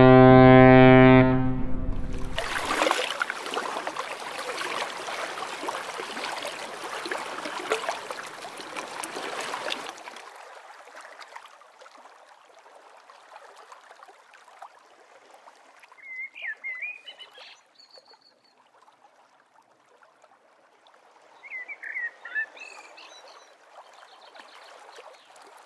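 A held musical chord ends about two seconds in. A rushing hiss follows and fades away over the next several seconds, leaving a faint outdoor ambience. Two short bursts of warbling chirps come in the second half.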